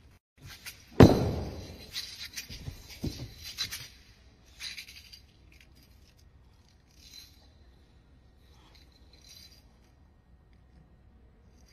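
A wushu spear striking the competition carpet once with a loud hit, followed by a few seconds of bright metallic clinking and rattling and a second, softer knock; a few faint taps come later.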